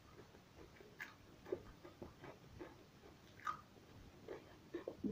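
Faint chewing of cucumber and rice: small irregular crunches and mouth clicks.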